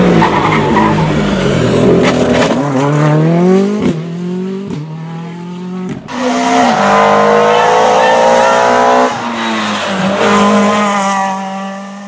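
Rally cars at full throttle. A Ford Fiesta R5's turbocharged four-cylinder engine passes close, its note climbing through quick upshifts with a short break at each change. About halfway through, another rally car's engine climbs through the gears again.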